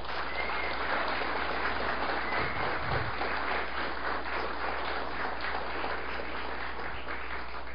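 Audience applauding: a steady round of clapping that eases off slightly near the end.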